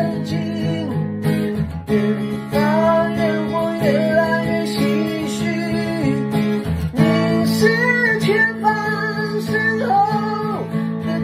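A man singing a slow Mandarin pop ballad, accompanying himself on a strummed acoustic guitar.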